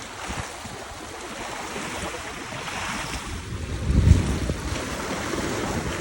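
Lake water washing in small waves, with wind buffeting the microphone in low rumbling gusts, the strongest about four seconds in.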